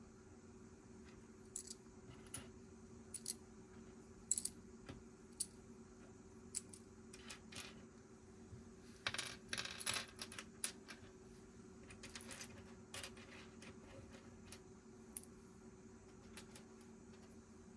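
Small plastic Lego pieces clicking and clattering as they are handled and pressed together, with a denser burst of clatter about nine seconds in, over a faint steady hum.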